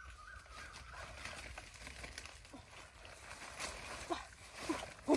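Leaves and branches rustling faintly as a fruit tree's branches are pulled and fruit picked. About four seconds in, a run of short, low hooting calls begins, roughly two a second, louder than the rustling.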